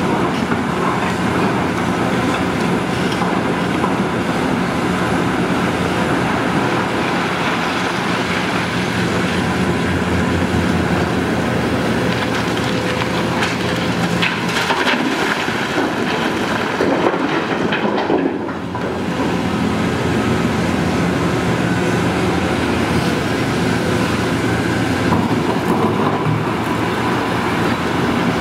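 Hitachi ZX690LCH-6 hydraulic excavator working: its diesel engine running steadily under load as it digs and swings. Blasted granite clatters into a rigid dump truck's bed about halfway through.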